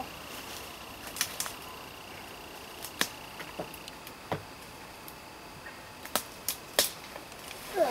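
Scattered sharp knocks and snaps of wood, a dozen or so at uneven intervals, over a faint outdoor hiss.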